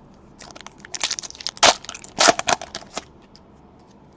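Plastic crinkling and crackling from trading-card packaging being handled. It comes as a quick run of sharp crackles over about three seconds, loudest about halfway through, then dies down to a few faint ticks.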